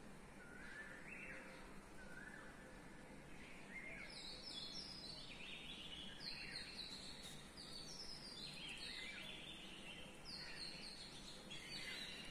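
Faint birds chirping: short repeated calls at first, becoming a busier run of quick high chirps about four seconds in.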